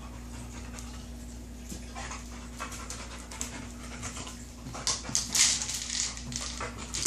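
A dog panting while it noses a Kong Wobbler, a hard plastic treat-dispensing toy, with irregular clicks and knocks of the toy on a hard floor. The sounds grow louder and busier about five seconds in.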